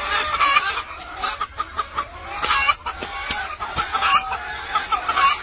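Hen clucking repeatedly in short calls, a few each second, with a few light clicks between them.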